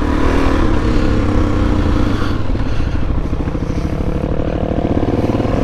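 Suzuki DR-Z400S single-cylinder four-stroke engine running under throttle as the dirt bike is ridden, with a steady fast pulse.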